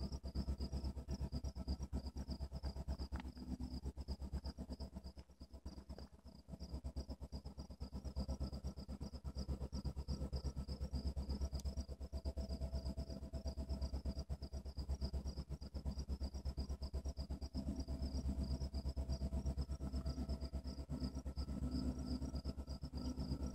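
Insects chirping in a rapid, even pulse, over a steady low rumble.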